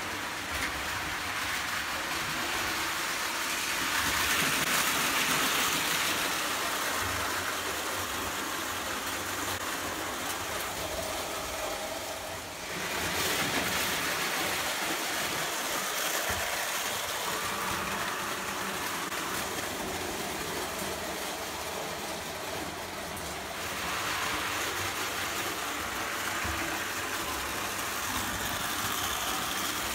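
Lionel O gauge tinplate trains running on three-rail steel track: a steady rolling noise of metal wheels and motors, changing level twice, about a third and two-thirds of the way through.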